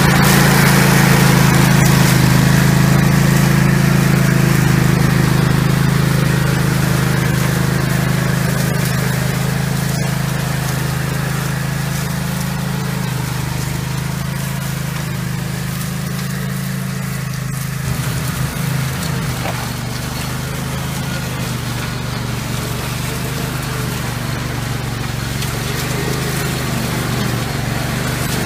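Orec RMK150 Rabbit Mower ride-on mower's engine running steadily while mowing, a constant low drone that wavers briefly in pitch a little past halfway.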